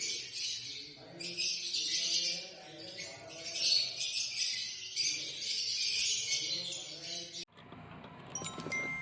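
Background music with jingling bells over a steady melody. It cuts off abruptly about seven and a half seconds in and switches to a different tinkling passage.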